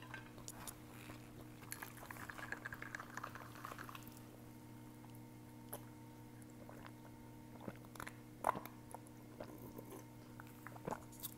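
Quiet close-miked eating sounds: soft chewing and a crackly slurping stretch about two seconds in, then scattered small clicks and taps. A steady low hum runs underneath.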